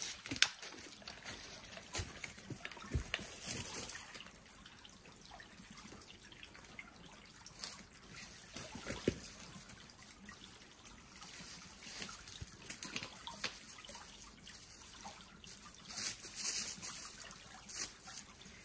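Small stream trickling steadily, with scattered clicks and knocks over it, the sharpest about half a second in.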